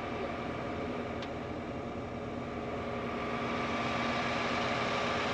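A motor running steadily with an even hum and a few held tones, getting a little louder in the second half.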